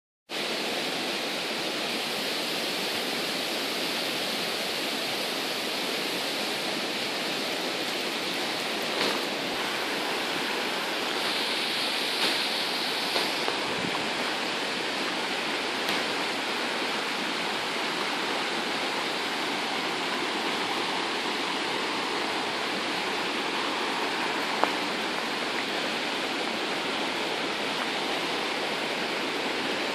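Steady rushing of a river flowing beside the path, with a few faint clicks scattered through it.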